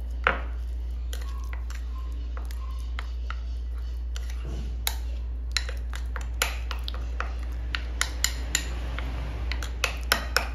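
A spoon stirring oil, butter and flour into a homemade cake-pan release paste, clicking and scraping against its container in irregular knocks, a sharp one right at the start and more of them close together near the end. A steady low hum lies underneath.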